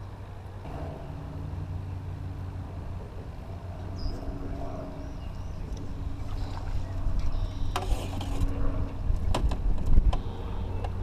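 Small boat motor running steadily on the lake, with a few sharp knocks and low rumbles near the end.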